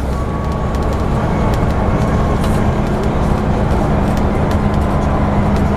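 Scania N94UB Omnidekka double-decker bus heard from inside on the upper deck while under way: a steady drone of engine and road noise with a held hum, and scattered light rattles and ticks from the bodywork.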